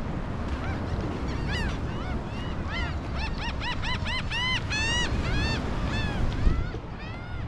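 A flock of gulls calling: a quick run of overlapping, arching cries that rise and fall in pitch, over a steady low rush of wind and surf. A single low thump comes near the end.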